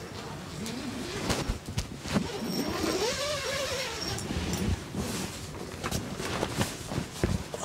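Tent door flap being opened: fabric rustling and handling with many small clicks, and one drawn-out cry that rises and then levels off about halfway through.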